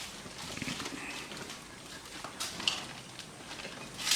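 Several dogs eating from plates, with scattered clicks and knocks throughout, the sharpest about two and a half seconds in and near the end.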